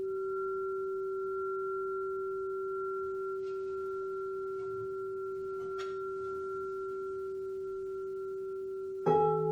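Singing bowl ringing with a steady, sustained tone and a fainter higher overtone. Just before the end a second, louder strike sets off a fuller chord with a low hum beneath.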